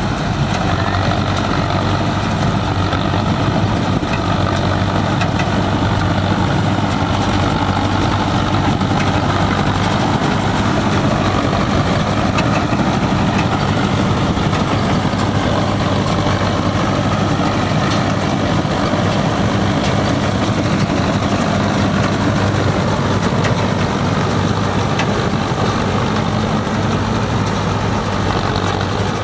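Yanmar Arjun YH700 combine harvester's diesel engine running steadily, a constant low hum that holds at one speed throughout.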